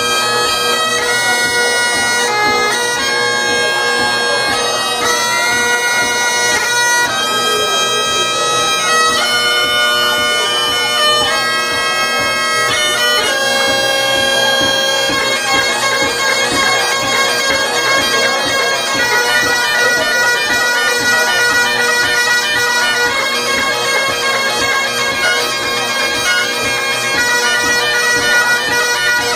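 Two Great Highland bagpipes playing a tune together over their steady drones. From about halfway through, the melody changes to fast, densely ornamented runs of notes.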